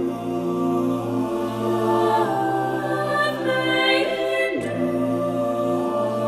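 Mixed a cappella SATB chorus singing, no instruments: the upper voices repeat "love may endure" in short moving phrases over long held notes on "right" in the tenors and basses.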